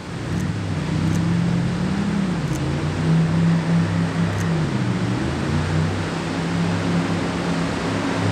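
Jet boat's engine running on the river below a large waterfall, its note dipping and rising again twice as the boat manoeuvres. Under it is the steady rush of the falls' whitewater.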